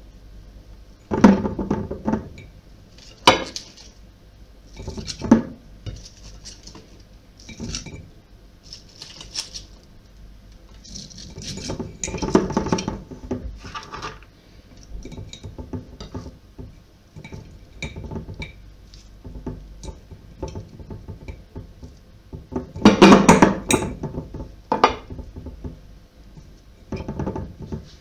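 Vegetables being packed by hand into a large glass jar: cabbage pieces rustling and being pressed down, with irregular knocks and clinks against the glass jar and plates. The loudest clusters of knocks come about a second in, near the middle and a little after three-quarters of the way through.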